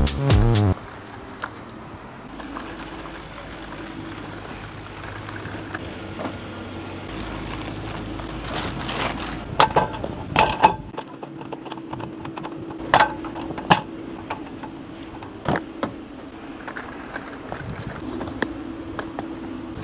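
Camping gear being loaded into a vehicle: a few sharp knocks and clatters over a steady low hum. Background music cuts off just under a second in.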